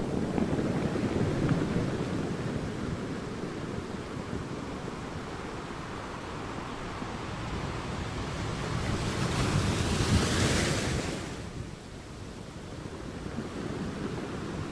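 Sea waves washing on a shore, with a larger wave breaking about ten seconds in, its hiss dying away a second or two later.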